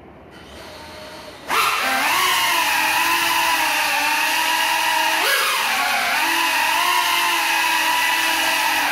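Small FPV quadcopter's electric motors and propellers spinning up abruptly and whining as it flies, the pitch wavering with the throttle and jumping up sharply about halfway through. It is flying on broken propellers.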